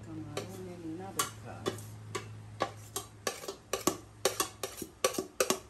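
Metal spoon scraping and knocking against a stainless steel pot, a dozen or so sharp metallic clinks that come closer together towards the end, as a fried rice mixture is scraped out into a pot of rice.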